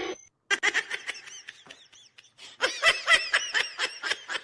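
A person laughing in a rapid string of short bursts, which grow louder and come faster in the second half.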